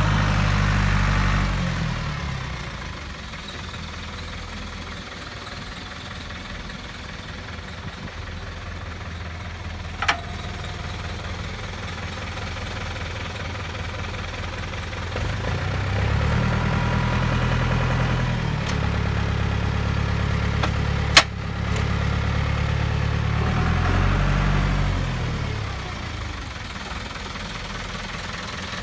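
1996 John Deere 3200 tractor's diesel engine running, mostly at idle. About halfway through the revs rise and are held for several seconds, then fall back to idle near the end. Two sharp clicks, one about ten seconds in and one about twenty seconds in.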